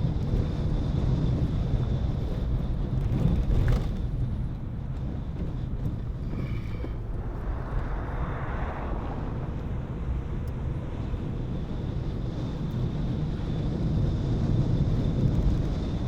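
Car driving on a country road, heard from inside the cabin: a steady low rumble of engine and tyres, with a swell of louder noise for about two seconds midway.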